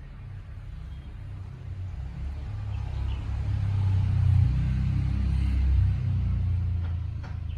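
Low rumble that swells to its loudest about four to six seconds in and then eases off, with a run of evenly spaced clicks starting near the end.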